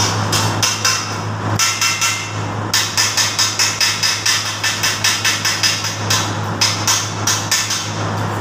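Hammer strikes on a steel trolley-cart frame, about three a second in steady runs with short breaks, each with a short metallic ring, over a steady low hum.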